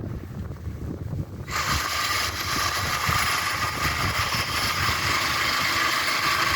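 Wind rumbling on the microphone, then a loud steady hiss that starts suddenly about a second and a half in and cuts off abruptly near the end.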